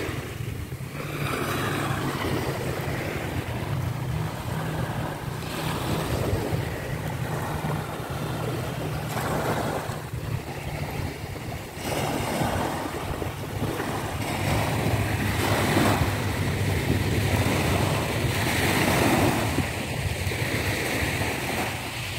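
Small sea waves breaking and washing up on a sandy shore in rising and falling surges, with wind rumbling on the microphone.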